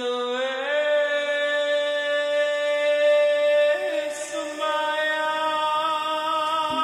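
Background music of long, held chant-like notes that shift to a new pitch twice.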